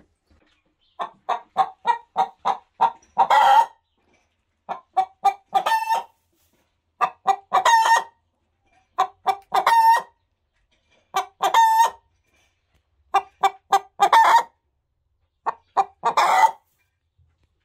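Hen cackling in seven rounds about two seconds apart, each a quick run of short clucks ending in one longer, drawn-out squawk. This is the egg song a hen gives at the nest around laying.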